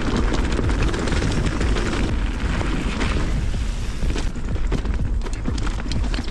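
Wind rumbling heavily on the microphone of a camera riding along on a bicycle, over a steady hissing road noise with scattered small clicks.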